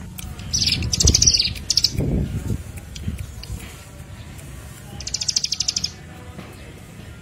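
A small songbird gives rapid, high-pitched chattering trills of quick ticks, twice, the first about half a second in and the second about five seconds in. Loud low thumps come around the first trill.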